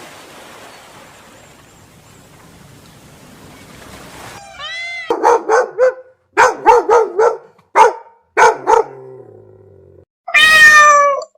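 Bird calls: a soft stretch of noise, then short calls repeated in quick runs from about five seconds in, and one long wailing call near the end.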